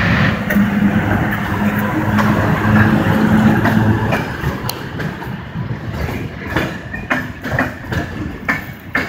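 EP07 electric locomotive pulling out and passing close by, its motors and blowers humming steadily for the first few seconds. Then passenger coaches roll past with irregular clicks and clunks of wheels over rail joints and points.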